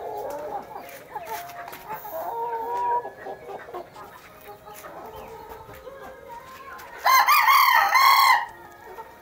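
Chickens clucking, then about seven seconds in a rooster crows once, loudly, for about a second and a half.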